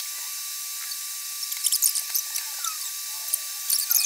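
Scattered small clicks and clinks of hand tools and bike parts being handled, over a steady high hiss and a thin steady whine.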